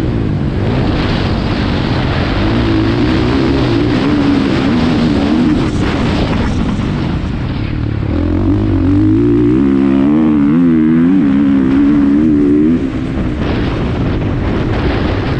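2020 KTM 450 SX-F's single-cylinder four-stroke engine, heard close from on the bike while riding a motocross track. Its pitch rises and falls again and again as the throttle is worked, and the engine backs off sharply about two-thirds of the way in.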